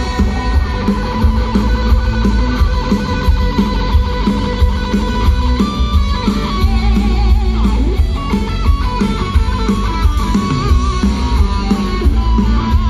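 Rock band playing live with electric guitars, bass, keyboards and drums, an instrumental passage with no singing. A lead guitar melody with bent notes comes in about halfway through over heavy bass and drums.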